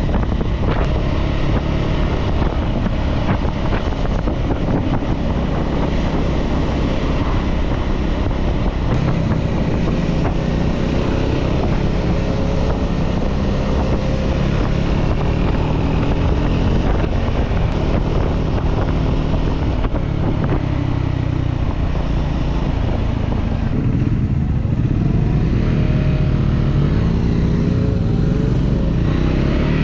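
Motorcycle engine running under way, its pitch rising and falling with the throttle and gear changes, with wind noise over the microphone.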